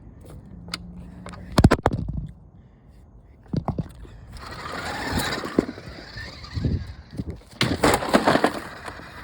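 Remote-control toy car clattering: a few sharp knocks, then a stretch of rolling, scraping noise of its wheels on rough ground, with more clattering knocks near the end.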